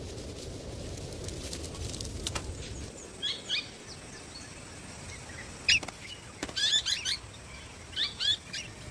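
Golden-shouldered parrots giving short, high chirps in small clusters from about three seconds in. Under them in the first few seconds is a low rumble with scattered crackles of burning dry grass.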